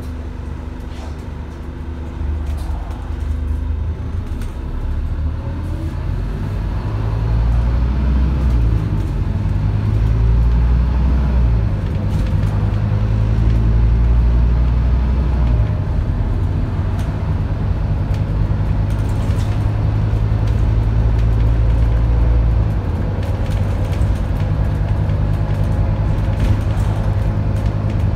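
Scania DC9 five-cylinder diesel engine of a Scania N230UD double-decker bus, heard from inside the saloon, pulling away and accelerating. The engine grows louder and its note rises over the first several seconds, then drops back three times at the automatic gearbox's upshifts before running on steadily.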